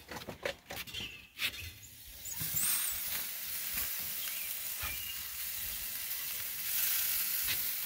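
Marinated chicken pieces sizzling on the hot grate of a Broil King Keg charcoal grill, a steady hiss that sets in about two seconds in. Before it, a few knocks and clicks as the grill is opened and the meat handled.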